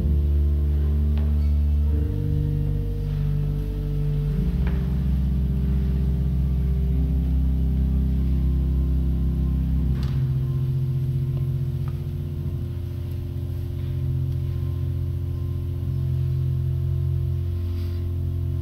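Church organ playing slow, sustained chords low in its range, each held for a few seconds before moving to the next.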